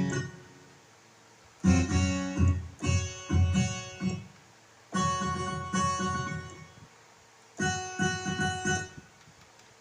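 Yamaha Motif ES6 synthesizer played in three short phrases of notes with pauses between them, on a piano-like plucked voice, as a test of its sound output.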